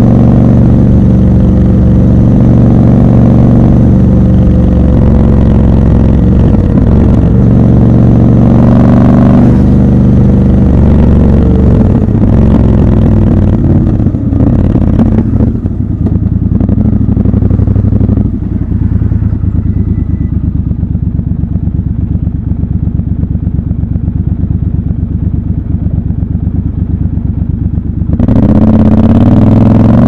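Triumph Scrambler 1200 XC's parallel-twin engine running steadily while riding, then easing off and idling at a standstill for about twelve seconds. Near the end it revs up with rising pitch as the bike pulls away.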